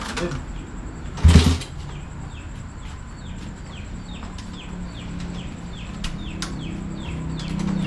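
Motorcycle engine running at idle, a steady low hum that grows stronger near the end, on a bike brought in because its engine is noisy. A loud knock comes about a second and a half in, and a quick run of short high chirps, about three a second, sounds through the middle.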